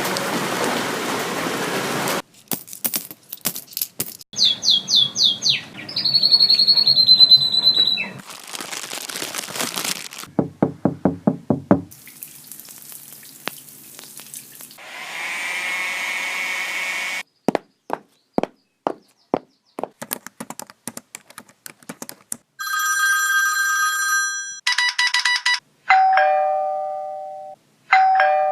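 A quick run of short, unrelated sound effects one after another: bursts of hiss-like noise, chirping whistles, runs of clicks and pulses, and ringing bell-like tones. Near the end comes a two-note falling chime like a ding-dong doorbell.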